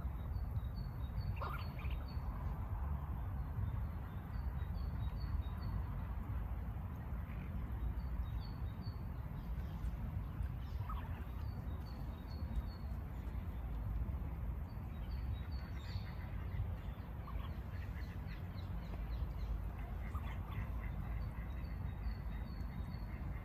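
Small birds chirping in quick series of short high notes, with a few lower single calls, over a steady low rumble.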